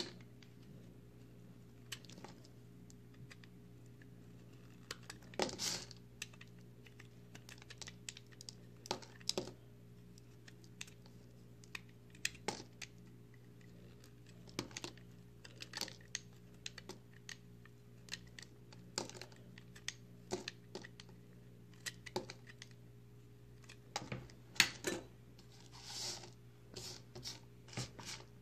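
A utility knife blade cutting into a dry, crumbly bar of recycled soap made of pressed chunks. It gives irregular crisp crunches and snaps, one to three a second, over a faint steady hum.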